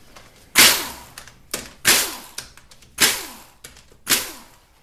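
Cordless impact wrench run in four short bursts about a second apart, each starting sharply and dying away, spinning out the valve body bolts of an automatic transmission.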